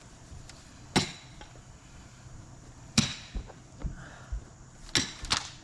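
Sharp striking impacts with a brief metallic ring, four of them: roughly two seconds apart, the last two close together.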